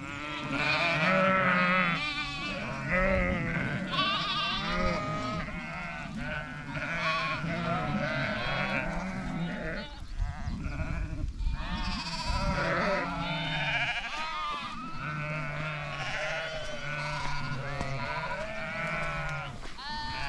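A flock of ewes and lambs bleating constantly as it moves, many calls overlapping, the lambs' high cries mixed with the ewes' lower bleats.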